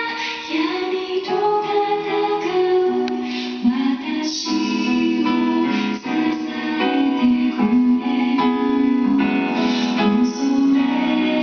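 Background song: a woman singing a slow melody over guitar and piano accompaniment.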